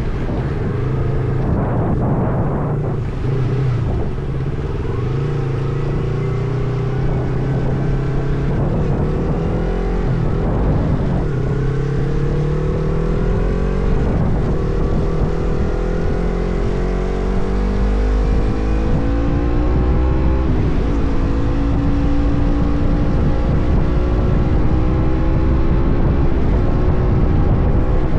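Motorcycle engine running under way, its note climbing slowly for most of the time, falling back once about twenty seconds in, then climbing again.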